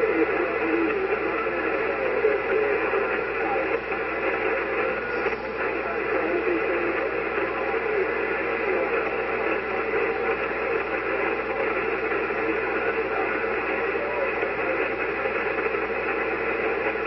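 Amateur radio receiver tuned to a 40-metre SSB net: steady static and hiss of band noise, with a weak, fading distant station's voice buried in it.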